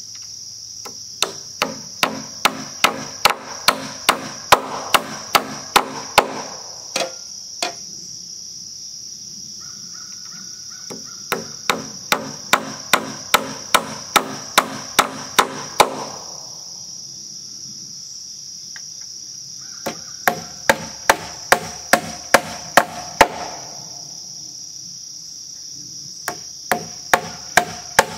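Claw hammer driving nails through a steel hurricane strap into a wooden rafter: four runs of quick blows, about three a second, with short pauses between the runs.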